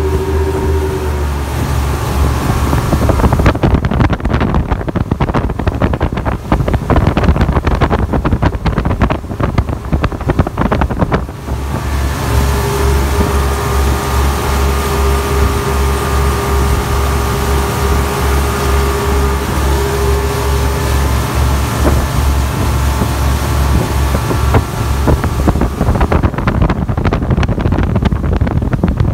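Twin Yamaha 250 outboard motors running at speed, a steady low drone. Heavy wind buffets the microphone from about four seconds in to about eleven, and again near the end.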